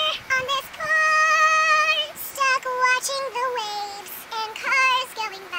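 Teenage girls singing a melody unaccompanied, with long held notes that waver in vibrato.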